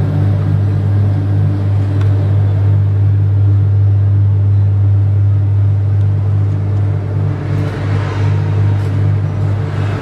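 Wirtgen slipform concrete paver's engine running at a steady speed, a loud, even, low drone. A brief rush of hiss comes near the end.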